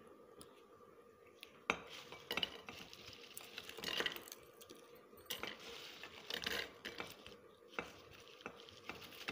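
Crisp fried namak pare dropped by hand from a plate into a ribbed glass jar: light clinks against the glass and a crunchy rustling clatter, coming in irregular handfuls from about two seconds in.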